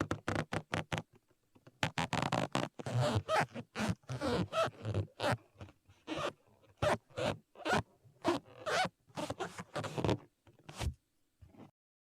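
Rubber balloon squeaking as it is rubbed, in a quick irregular series of short squeaks that thin out and stop near the end.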